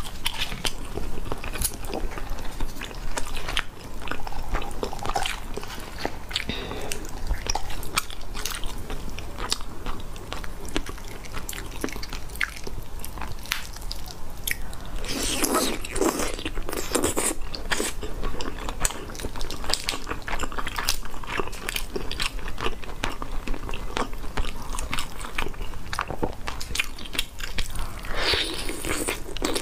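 Close-miked eating sounds from a whole spicy roast chicken: the meat pulled apart by hand, then bitten and chewed, with wet clicks and crunches. A louder stretch comes about halfway through and again near the end.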